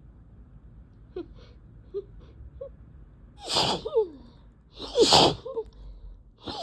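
A person sneezing twice in quick succession, a second or so apart, after a few short catching breaths; each sneeze ends in a falling voice. It is an allergic sneezing fit from a cat allergy.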